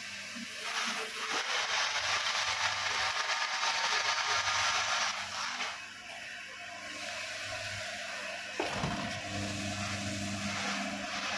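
Mixer machine and bucket elevator running with a steady electric-motor hum, while dry meal pours from the mixer's discharge gate into a sack with a loud rushing hiss for about five seconds. A knock about two-thirds of the way through, after which the motor hum is heard more plainly.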